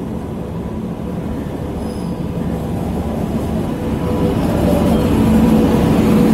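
Indian Railways WAP-7 electric locomotive rolling past close by, a rumble of wheels on rail with a steady hum, growing louder as it draws level.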